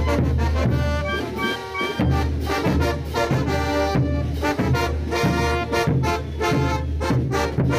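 Brass band playing morenada music: trumpets and trombones hold melody notes over heavy bass notes and a steady beat.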